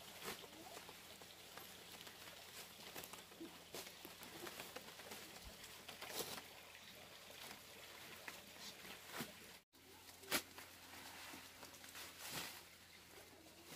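Leafy green fodder rustling as bunches are pulled from a woven basket and tossed onto the dirt, with scattered soft ticks and taps.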